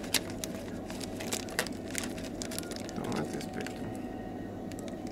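Small metal shisha tobacco tins clicking and clinking against each other in a plastic tray as a hand sorts through them, with a light crinkle of foil packaging near the end. A steady low hum runs underneath.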